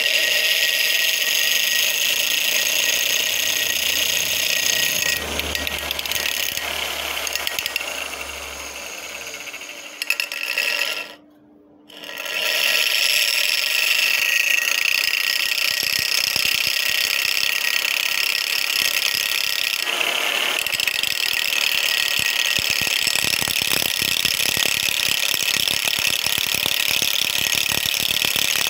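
Bench grinder running while the steel knife of an overlock machine is pressed against the wheel, grinding the worn edge back. There is a short drop-out a little before the middle, and the grinding turns rougher and crackly later on.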